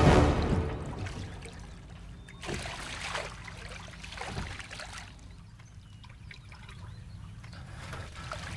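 Water lapping and trickling around a wooden boat being rowed along a canal, with a few soft oar splashes between about two and four and a half seconds in. Music fades out in the first second.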